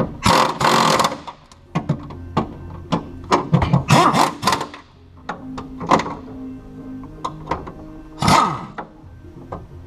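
Pneumatic impact wrench running in three short bursts as it spins nuts onto the steering column's firewall studs, with sharp clicks and clanks of the tool and metal between bursts.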